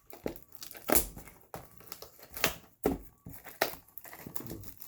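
Plastic wrapping on a sealed box of trading cards crinkling and crackling as it is handled and opened, in a run of sharp irregular crackles.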